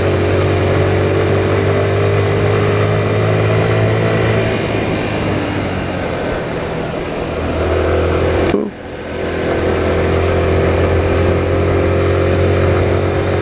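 A 125 cc motorcycle engine pulling steadily up a climb. The engine note drops out sharply for a moment about two-thirds of the way through, then picks up again.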